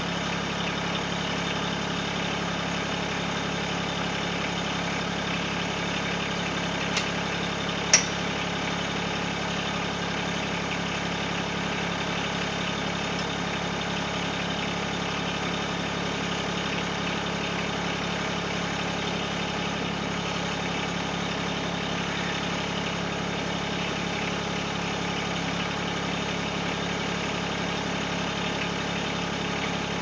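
Mahindra eMax 20S compact tractor's three-cylinder diesel engine idling steadily. Two sharp knocks a second apart break in about a quarter of the way through, the second louder.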